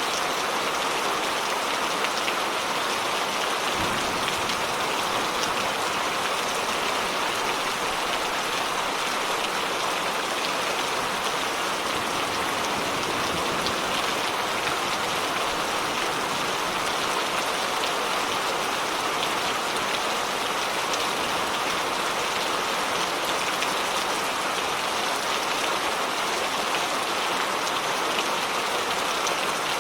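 Steady rain falling, a continuous even hiss of drops pattering on surfaces.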